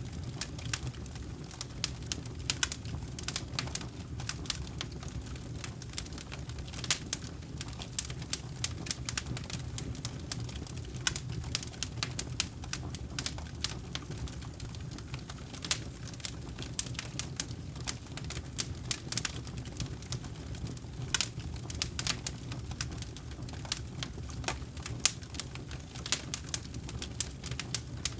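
Wood campfire burning, with many irregular sharp crackles and pops over the steady low sound of the flames.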